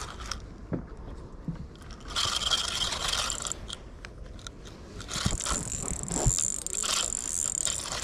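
Spinning fishing reel being cranked, its gears whirring in two spells: a short one about two seconds in and a longer one from about five seconds in, with a few knocks of rod handling.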